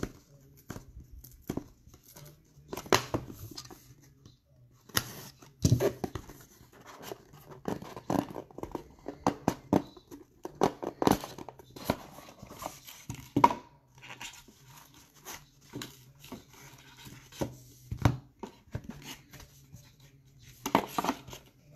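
A sealed cardboard trading-card box being torn open and handled: irregular tearing and crinkling, cardboard scraping, and sharp clicks as rigid plastic top-loaders are handled.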